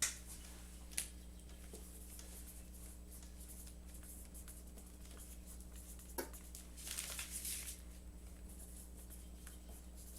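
Vacuum-seal bags being handled at the counter: a few light clicks, one about six seconds in, and a rustle about a second long just after it, over a steady low hum.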